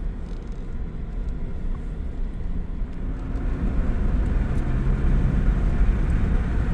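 Road noise of a moving vehicle heard from inside: a steady low rumble of engine and tyres, growing louder with a rising hiss about three seconds in.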